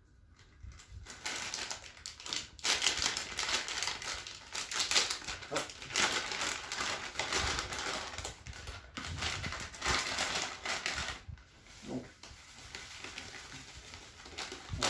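Plastic bag of stick-mix bait crinkling and rustling as it is handled and opened. The crackling starts about a second in and dies down to a quieter rustle for the last few seconds.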